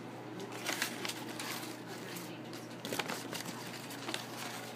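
A sheet of paper crinkling and tearing as a blue-and-gold macaw bites and shreds it. The crackles come in scattered, irregular snatches, most marked about a second in and near three seconds.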